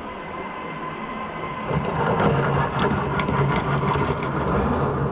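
A steady mechanical rumble and hum that grows louder about two seconds in, with clicking and clatter over it.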